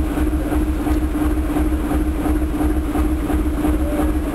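Boat engine running steadily underway: an even low pulsing with a steady hum above it.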